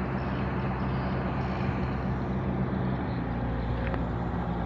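Old heavy-equipment diesel engine running steadily, its note shifting slightly about three seconds in.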